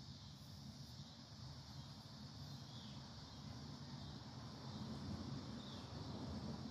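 Faint outdoor backyard ambience: a steady high hiss and a low rumble that grows slightly near the end, with two brief faint chirps, about three and six seconds in.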